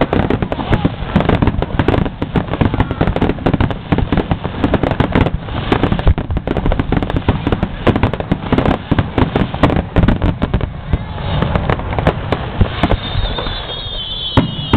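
Aerial fireworks going off in a dense, continuous barrage of bangs and crackles, with a high wavering tone near the end.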